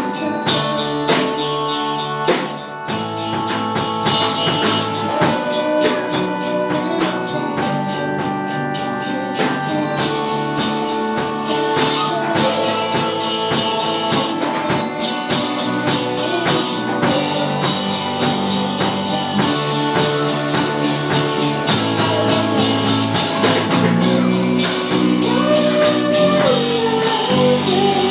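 A small live band playing a worship song: electric guitar, bass guitar and a drum kit keeping a steady beat, with a young boy's voice singing lead, clearest near the end.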